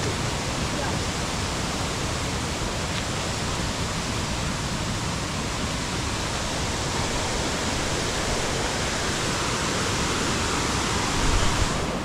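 Steady rush of falling water from the Na Muang 2 waterfall, an even hiss that holds at one level throughout.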